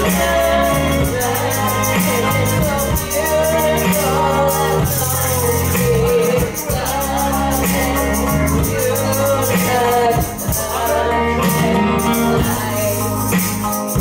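A woman singing karaoke into a microphone over a recorded backing track with a steady beat, played loud through a PA.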